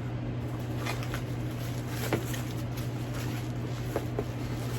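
Handling noise from unpacking a handbag: soft rustles and a few light clicks, over a steady low hum.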